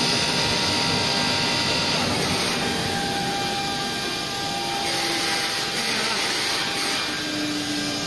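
Woodworking CNC router with a drill block and saw unit running: a steady machine hiss with several thin whining tones from its motors, a few low tones shifting in pitch about halfway through as the head moves.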